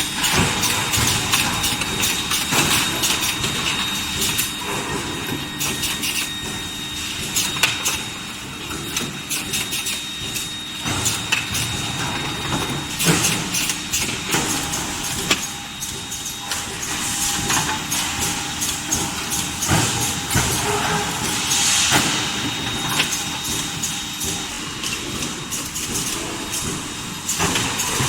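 Induction bar-heating line for forging running: a steady machine noise with a thin high tone, broken by frequent short knocks and clatter.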